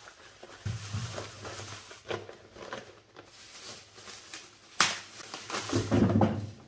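Plastic produce bags crinkling and a brown paper bag rustling as potatoes are handled and dropped into the paper bag. There is a sharp crackle about five seconds in, followed by dull thuds of potatoes landing in the bag.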